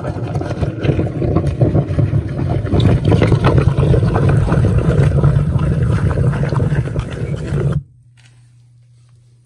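Pit Shot directional drill's boring head turning and pushing through soil and rock just behind the wall of the exit pit: loud grinding and scraping with many small cracks. It stops suddenly about eight seconds in, leaving a faint low steady hum.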